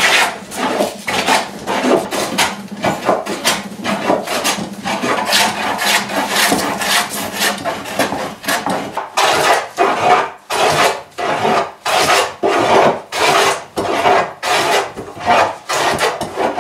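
Hand plane shaving across a wide wooden slab in quick repeated strokes, about two a second, flattening the board's face.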